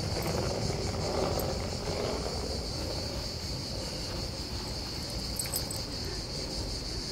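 A steady, high-pitched chorus of insects shrilling without a break, over a low background rumble.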